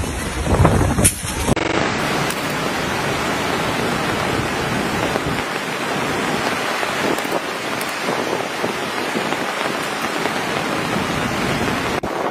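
Heavy typhoon rain pouring steadily, an even hiss. It is preceded by a loud burst of rumbling, gusting noise that cuts off sharply about a second and a half in.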